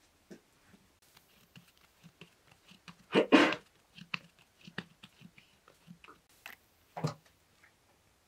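Hands kneading and shaping soft dough on a cloth: a run of small soft pats and squishes, with a louder thump about three seconds in and another near the end.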